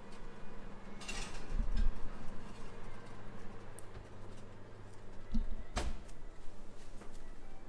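A ceramic baking dish scrapes briefly onto an oven's wire rack about a second in. Near the end, the oven door shuts with one sharp knock.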